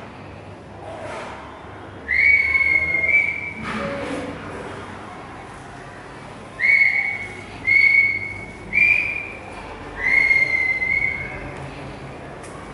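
A series of about six clear, high whistled notes, all near the same pitch. The first and last are held longer than a second, and the middle ones are shorter, about a second apart.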